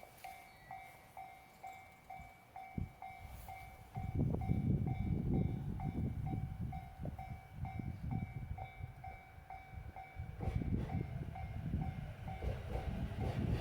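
Japanese level-crossing warning bell ringing about twice a second. About four seconds in, an electric commuter train's rumble and wheel clacks rise over it as the train runs through the crossing.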